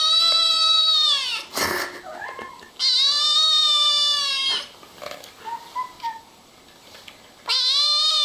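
Kitten meowing in long drawn-out calls of about two seconds each, each dropping in pitch as it ends. One call ends about a second in, another comes in the middle, and a third starts near the end.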